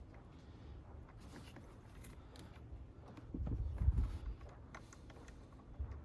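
Faint clicks and handling noise of hand-tool work on a car battery's terminal block. A louder low bumping rumble comes a little past halfway.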